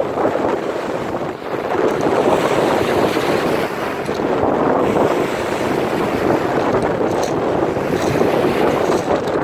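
Choppy lake waves washing up onto a pebble beach, a continuous rushing that swells and eases, with gusty wind buffeting the microphone.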